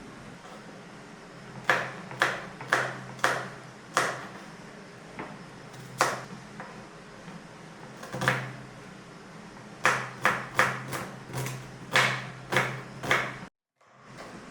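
Sharp metallic taps of a utensil against a metal pot or bowl, about sixteen in irregular runs, each ringing briefly, over a steady low hum.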